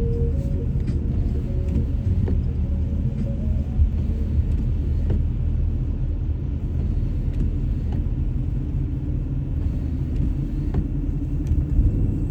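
Car driving on a snowy road: a steady low rumble of engine and tyres, with a few faint ticks.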